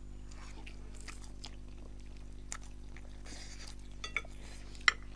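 Eating sounds: utensils clinking against a dish a few times, the sharpest clink near the end, with soft chewing, over a steady low hum.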